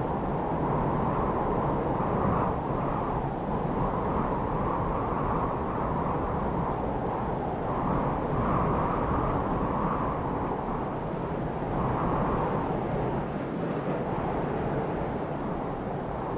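Anime wind sound effect: a steady rush of wind that swells and eases every few seconds.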